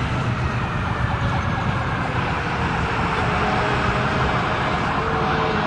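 Emergency vehicle siren sounding over a loud, steady rumbling noise.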